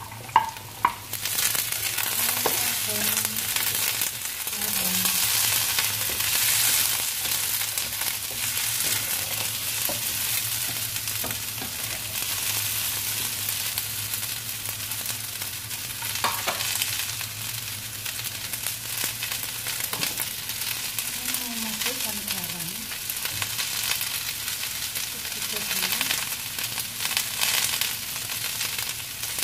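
Cut long beans tipped into a hot oiled wok of fried tempeh and aromatics: a couple of sharp clicks at the start, then steady sizzling frying from about a second in, with a spatula stirring and scraping through the pan.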